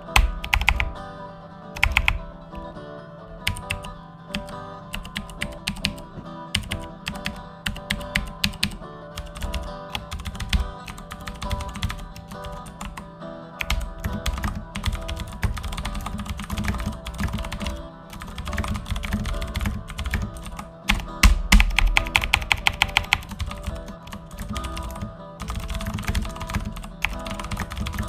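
Computer keyboard typing in quick, irregular runs of clicks, with a louder flurry about three quarters of the way through, over background music.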